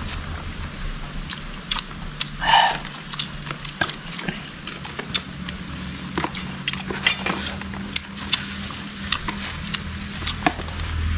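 Scattered small clicks and crackles of hands working small fish on a leaf, with rustling of a plastic bag and dry ground litter, over a low steady rumble.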